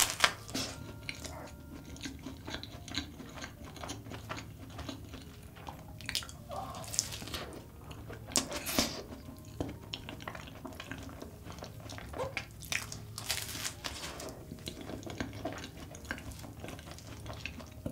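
Close-miked mouth sounds of biting into and chewing a large custard-filled cream puff coated in melted Nutella: soft, wet, sticky chewing with many irregular little clicks, and a loud bite right at the start.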